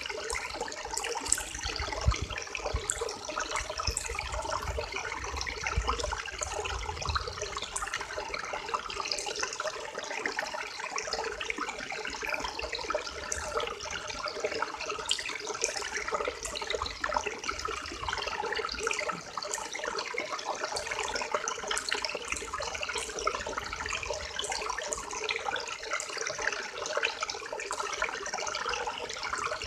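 River water flowing and babbling steadily, a continuous rush with constant small splashes and gurgles.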